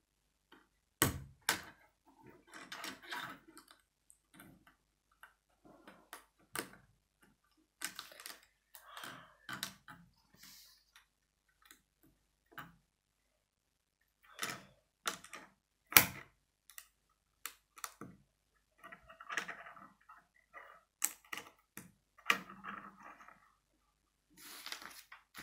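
Plastic Lego bricks clicking and knocking as small pieces are handled and pressed together on a wooden table: irregular sharp clicks, with softer rustling of parts between them.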